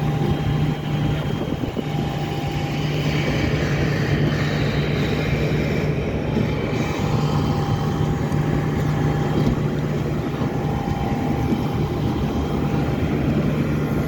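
Airliner engines running, heard from inside the cabin as a steady loud drone with a constant low hum and a faint high tone.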